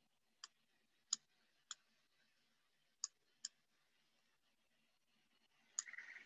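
Faint, scattered clicks of a computer mouse, about six of them spread unevenly over several seconds against near silence.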